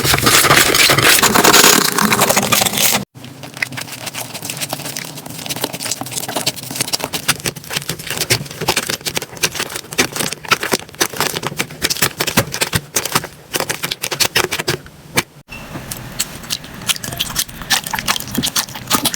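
Slime being squeezed and poked by hand, giving a dense run of sticky crackles and sharp clicking pops. The sound cuts off abruptly twice, about three seconds in and again near the end, as one clip gives way to the next.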